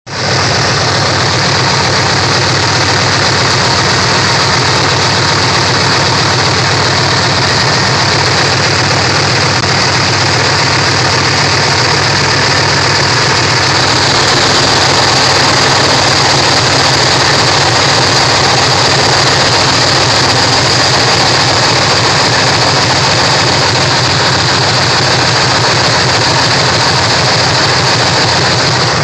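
Pontiac Trans Am V8 idling steadily with its oil filler cap off, crankcase blow-by gases puffing and hissing out of the open filler neck. The owner takes this for compression lost past worn-out piston rings.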